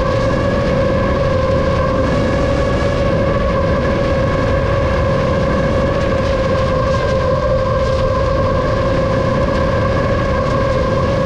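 Seven-inch FPV drone's motors and propellers whining at a steady pitch over a rushing noise.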